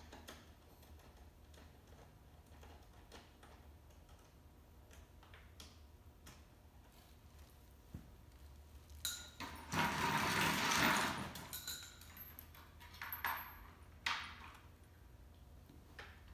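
Small clicks and metallic clinks of hand tools and parts being handled while assembling the handlebar area of a small electric ATV. About ten seconds in there is a louder rasping noise lasting about a second and a half, then a few more knocks. A low steady hum runs underneath.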